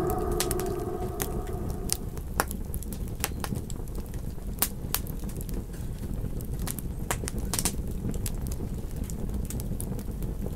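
Campfire crackling, with irregular sharp pops and snaps over a low steady rumble. The tail of a wolf howl fades out in the first second.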